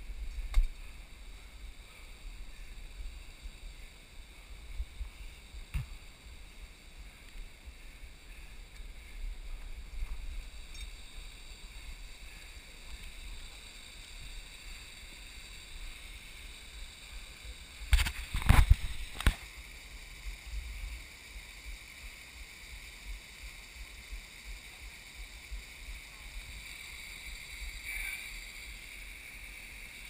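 Steady rushing of a waterfall and wind rumbling on a GoPro's microphone in its housing, with a few loud knocks about eighteen seconds in.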